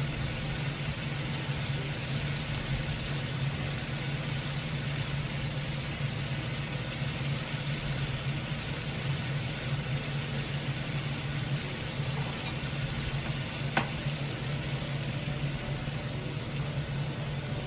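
Mustard-paste fish curry sizzling steadily in a frying pan over turned-up heat, with a low steady hum underneath. A single sharp click sounds about 14 seconds in.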